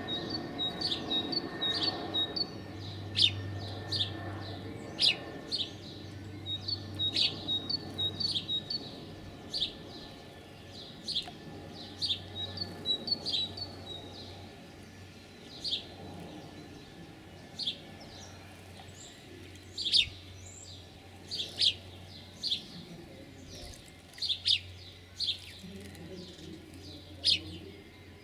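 Small songbirds chirping: short, sharp calls repeated irregularly, with quick twittering runs in the first half, growing sparser later on.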